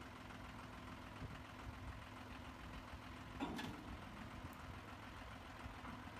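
Tractor engine idling faintly with a steady low hum. One short noise about halfway through.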